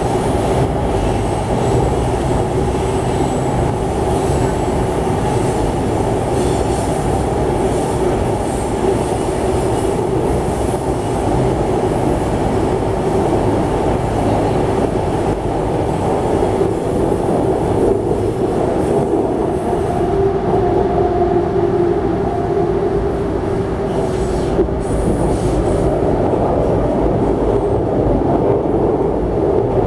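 Tren Urbano metro train running at speed between stations, heard from inside the passenger car: a steady rumble of wheels on rail with a constant whine. A second, higher whine is added for a few seconds about two-thirds of the way through.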